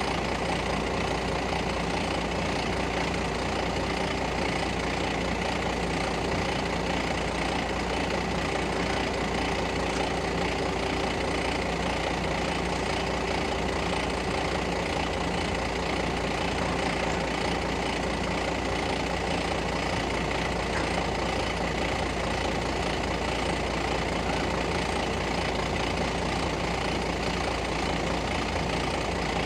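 Mobile crane's diesel engine running steadily at a constant, unchanging level.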